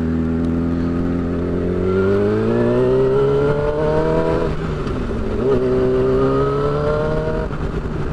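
Yamaha R6 inline-four through a shorty slip-on exhaust, running steadily, then pulling up in pitch for about two and a half seconds. It drops sharply as the rider shifts up, pulls up again and drops once more near the end.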